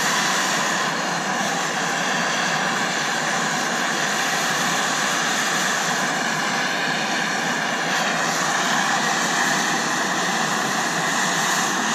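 Two handheld gas torches burning with a steady rushing hiss as they heat a corrosion-frozen bolt to free it.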